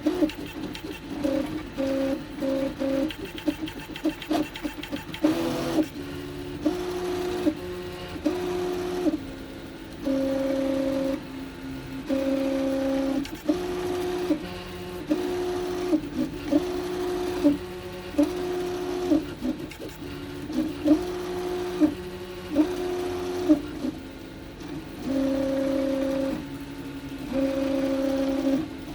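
NEMA 17 stepper motors on TMC2209 drivers in stealthChop, in a 3D printer, humming with a tone that jumps between a few pitches every second or two as the printer moves, with short clicks between moves. This is the strange resonance noise the drivers make around the printer's 60 mm/s base speed.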